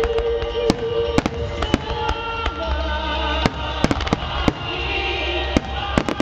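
Aerial fireworks bursting in sharp bangs, scattered at first and then in a rapid barrage near the end, over music with long held tones.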